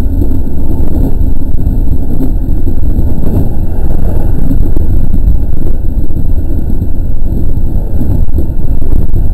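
JR 207 series electric train running along the line, heard from inside the front cab as a loud, steady low rumble of wheels on rail.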